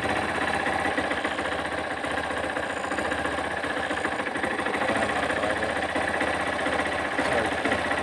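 Yamaha SZ16 motorcycle's single-cylinder engine idling steadily.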